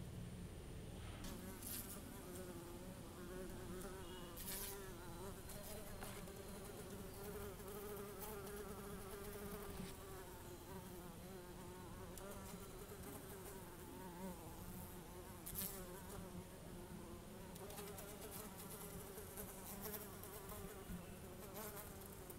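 A bee buzzing: a continuous drone whose pitch wavers slightly up and down, with a few brief faint clicks.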